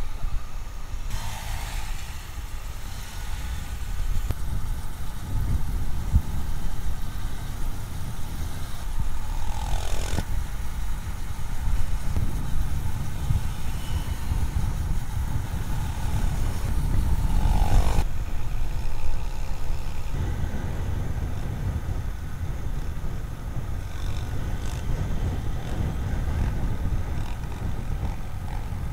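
Motorcycles on the move: a steady low rumble of engines and road noise. About ten and again about eighteen seconds in, a vehicle passes close, its pitch falling as it goes by.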